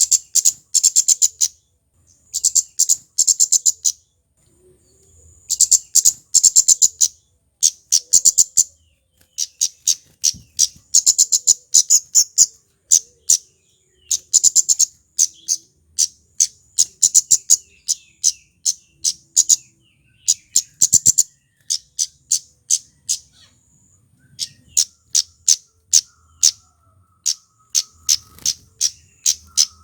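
Male kemade, a small flowerpecker, calling: rapid, sharp, very high chips in bursts of several a second, with short pauses between bursts.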